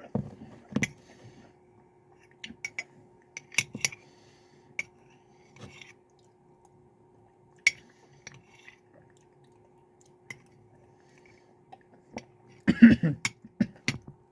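A spoon clinking and scraping against an ice cream container, in scattered short clicks while eating. Near the end comes a short loud fit of coughing as a mouthful of ice cream goes down the wrong way.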